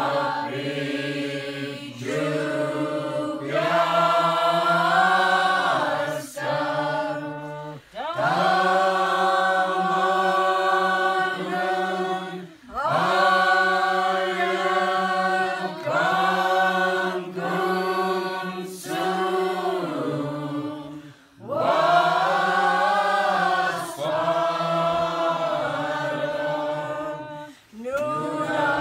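A crowd of people singing a Slaaviq (Orthodox Christmas starring) carol together without instruments, in long sung phrases with brief breaks between them.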